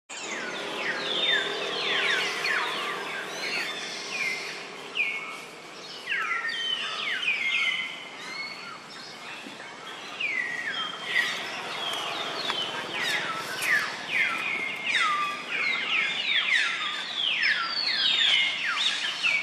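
Birds chirping, many quick high calls overlapping, each sliding down in pitch.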